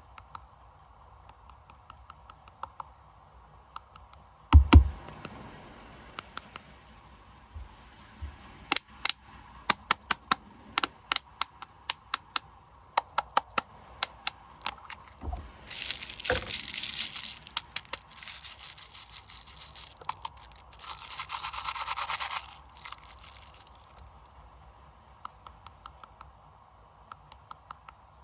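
Plastic snack wrappers being handled and unwrapped. There is a thump about four seconds in, then scattered sharp crackles, then a long stretch of crinkling and tearing packaging in the middle.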